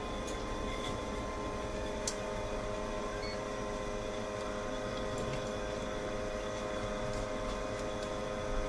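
Steady electrical hum from powered equipment: several steady tones over an even low noise, with one faint click about two seconds in.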